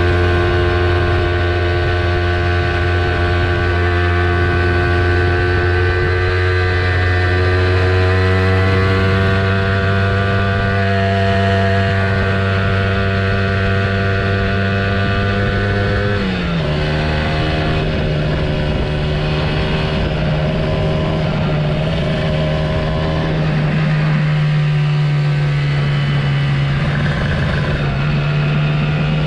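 Kawasaki Ninja motorcycle engine running steadily under way. Its note drops suddenly about halfway through and then holds steady at the lower pitch.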